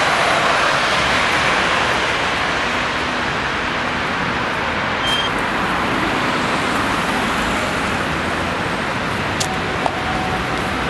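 Steady city street traffic: the continuous noise of cars on a busy boulevard, with a brief click about nine seconds in.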